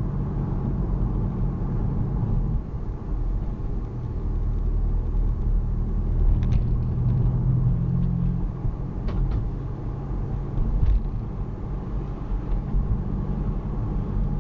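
Car engine and road noise heard from inside the cabin: a steady low rumble, with a few faint clicks.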